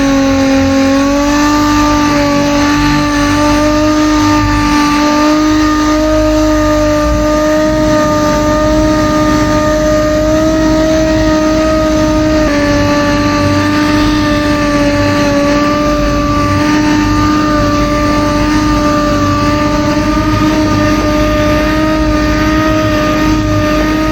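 Water-fed jitterbug sander with 2500-grit paper running at steady speed while wet-sanding a car hood, its pitch dropping slightly about halfway through.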